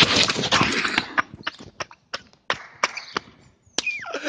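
A person and a wheeled suitcase crashing and scraping onto asphalt: a rush of scraping noise for about the first second. Scattered light clicks and knocks follow, and a short falling squeal comes near the end.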